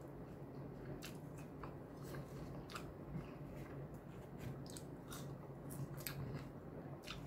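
A person chewing fried chicken with the mouth closed: faint, irregular crisp crunches and clicks, over a low steady hum.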